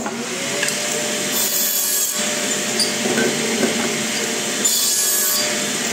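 Electric mitre saw running with a steady motor whine, its blade cutting square across the end of a wooden blank. There are two louder stretches of cutting: about a second and a half in, and again near the end.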